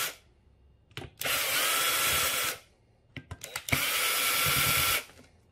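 Black & Decker cordless drill with a Torx bit running in reverse to back out the screws holding a random orbit sander's hook-and-loop pad. It runs twice, about a second and a half each time, with a whine that rises slightly at each start and a few light clicks between the runs.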